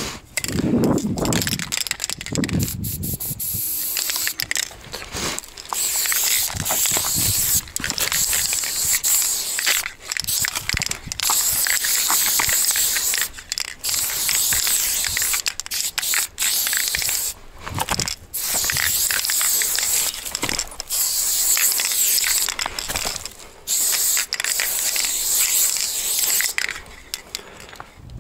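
Aerosol spray-paint can hissing in strokes of one to three seconds with brief breaks, as black paint is sprayed onto a concrete wall. A few low handling sounds come before the hissing starts.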